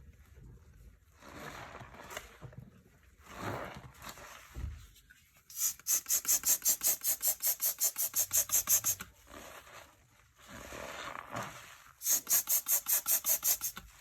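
Foamy floor-cleaning lather being squished and rubbed: a few slow, wet swishing strokes, then two runs of fast rhythmic squelching, about seven a second. The first run lasts about three seconds and begins a little before halfway; the second comes near the end.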